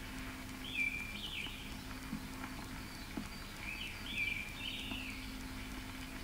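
Bird calls in a forest: two short phrases of chirping with quick rising and falling notes, about three seconds apart, over a low steady hum.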